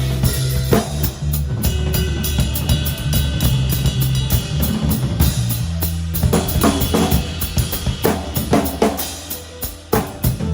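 A live band plays a groove: a drum kit with bass drum and snare hits over sustained bass guitar notes, with guitar tones above. The playing thins out for a moment near the end and then picks up again.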